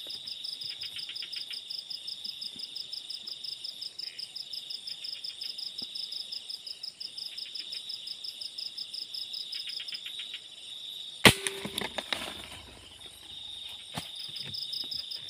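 Crickets trilling steadily in the dark; they fall silent shortly before a single sharp air rifle shot about two-thirds of the way in, followed by a second of knocks and rustling in the foliage, then take up their trill again near the end.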